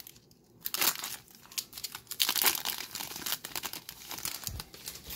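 Foil wrapper of a Magic: The Gathering set booster pack being torn open and crumpled in the hands. It is a dense, irregular crinkling that starts about half a second in.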